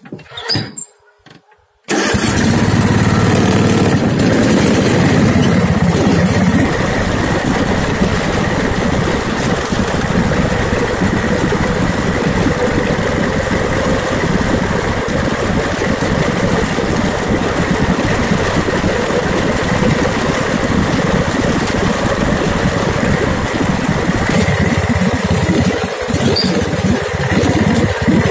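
Riding lawn mower's engine catching about two seconds in, after a few faint clicks, then running loud and steady as the mower drives across the lawn. Near the end the low rumble thins out a little.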